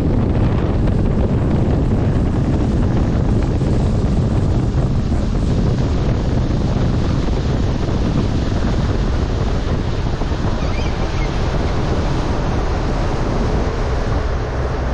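Steady wind buffeting the microphone over the wash of water around a small fishing boat on the lake.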